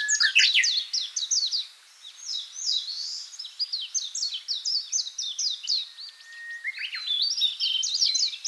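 Songbirds chirping and singing, a busy overlapping run of quick high chirps. It thins out briefly about two seconds in, and a thin held whistle comes in near six seconds.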